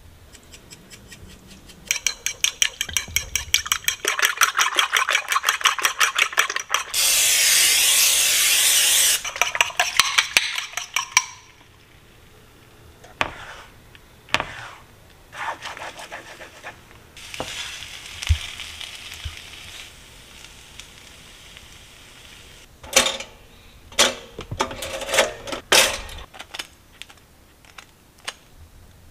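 A fork whisking eggs in a bowl, a fast, even run of clinks, followed by a loud hiss of eggs frying in a pan. Then a spatula scrapes and stirs the scrambling eggs over a fainter sizzle, and near the end a knife knocks and scrapes on a plate.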